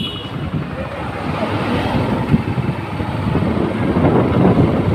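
Wind rushing over a helmet-mounted phone microphone on a moving motorcycle, with the bike's engine and road noise running underneath.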